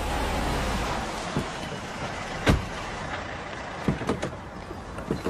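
A car engine running as the car pulls up, fading away after about a second, then a car door shutting with one sharp knock about two and a half seconds in. A few lighter knocks follow near the end.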